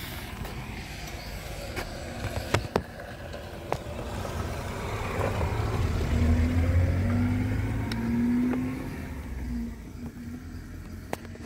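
A small car driving past, its engine rumble building to a peak about two-thirds of the way through and then easing off. A few sharp clicks in the first few seconds.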